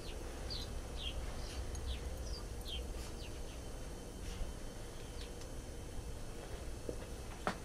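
Small birds chirping: short, high chirps that fall in pitch, several in each second, over a low steady rumble. A single sharp click comes at the very end.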